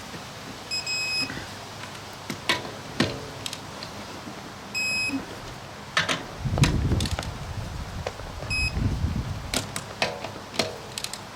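Electronic torque wrench beeping as a wheel lug bolt is tightened to its 115 ft-lb setting, three high beeps in all, among sharp clicks from the wrench. A low rumble runs from about six to nine seconds in.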